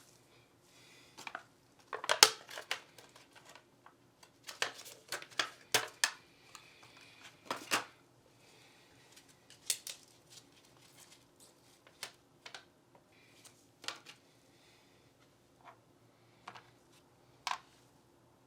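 Glock pistol parts and small tools handled on a bench: irregular sharp clicks and light taps with brief scrapes, busiest in the first half, the loudest click about two seconds in.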